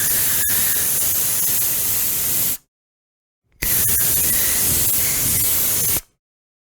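Aerosol spray can hissing in two long sprays: the first, already running, stops about two and a half seconds in, and a second starts about a second later and lasts about two and a half seconds.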